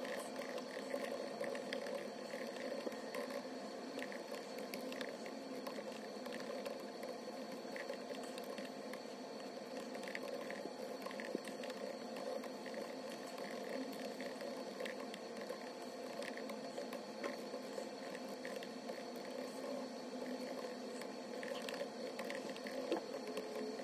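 Typing on a MacBook Pro laptop keyboard: quick, irregular soft key clicks over steady background noise.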